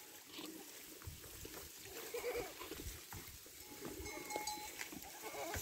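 Herd of goats on the move: faint bleating about two seconds in, scattered hoof steps on stony ground, and a small bell ringing lightly in the second half.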